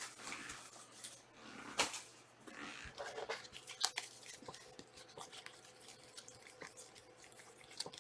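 Trading cards and pack wrappers being handled: soft rustling and crinkling with a few light clicks, one sharper click about two seconds in.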